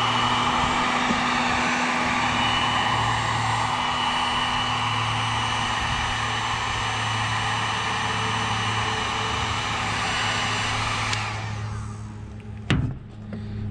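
Electric heat gun blowing steadily, a rush of air over a low hum, shrinking adhesive-lined heat-shrink tubing onto a crimped copper lug on welding cable. It is switched off about eleven seconds in and winds down, followed by a sharp click near the end.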